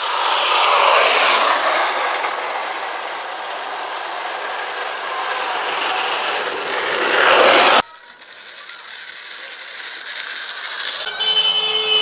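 Homemade wooden carruzzuna cart rolling fast down an asphalt street on steel ball-bearing wheels: a loud, harsh rolling rumble that grows as it comes closer, then cuts off suddenly about eight seconds in.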